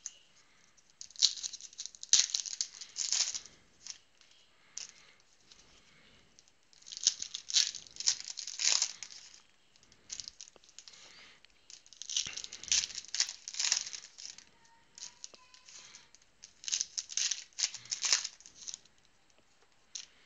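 Foil wrappers of Panini Contenders football card packs being torn open and crinkled. It comes in four bursts of crinkling a few seconds apart.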